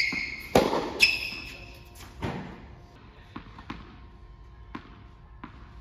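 Tennis ball struck by rackets and bouncing on a hard court in an echoing indoor hall: four loud, sharp knocks in the first two and a half seconds, with short high shoe squeaks on the court at the start and about a second in. Later come four fainter, lighter ball bounces, like a ball being bounced at the baseline before a serve.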